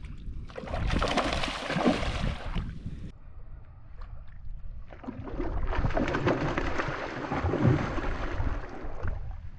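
Water splashing and sloshing in two long stretches: the first lasts about two and a half seconds, and the second starts after a short lull and lasts about four seconds.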